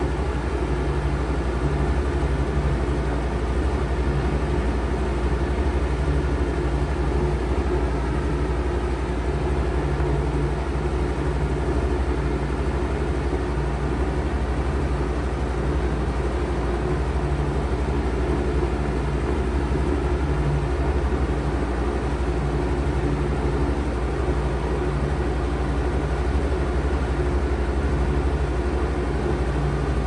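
2000 Bard 4-ton wall-hung heat pump running steadily in heat mode, its compressor and fan giving an even, unbroken hum.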